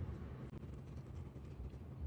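Low steady background hum with faint room noise, no distinct event.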